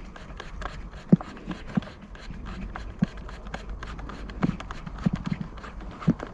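Irregular light clicks and knocks of screws and plastic parts being handled while screws are driven into a Homelite leaf blower's housing by hand.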